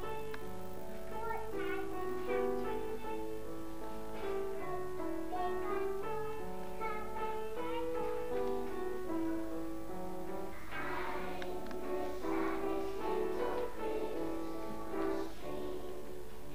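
Instrumental music: a stepwise melody of evenly held notes over a steady repeating bass line.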